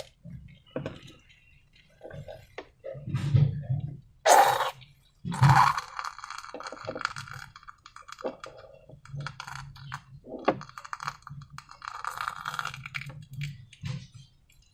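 Hands working slime and craft materials: irregular taps and clinks, two louder rustling bursts about four and five and a half seconds in, and stretches of wet, crackling squelch.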